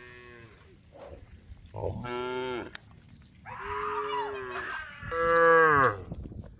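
Cows mooing: a faint moo at the start, then three drawn-out moos of about a second each, the last the loudest.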